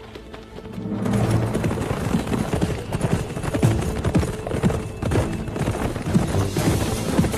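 Rapid hoofbeats of a galloping horse on a dirt forest path, starting about a second in, with music underneath.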